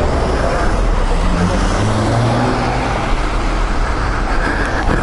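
125 cc motorcycle pulling away and riding on a wet road, its engine note rising about two seconds in as it speeds up, under a steady rushing noise.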